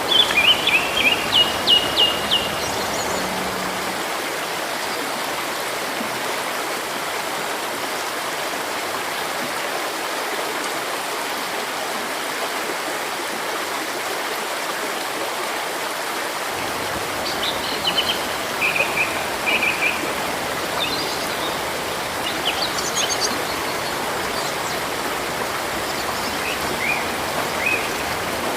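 A river flowing steadily, with songbirds calling over it: a quick run of chirps in the first two seconds or so, then scattered calls again from about eighteen seconds in until near the end.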